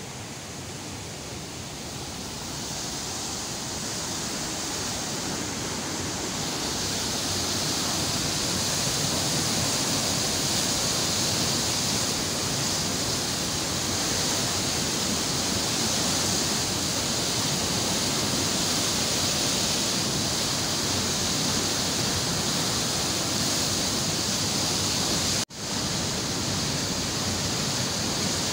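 Canal water rushing and churning as it pours through the gates of the Greater Thal Canal head regulator, a steady noise of turbulent white water. It swells over the first several seconds, holds steady, and cuts out for an instant about three seconds before the end.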